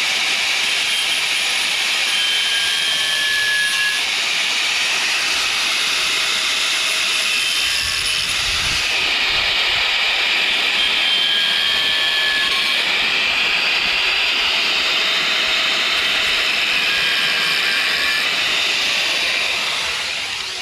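Corded Porter-Cable angle grinder with a cutoff wheel cutting through the steel points of a push mower's blade adapter: a steady, loud high hiss of the spinning wheel biting into metal, dying away near the end as the grinder is lifted off.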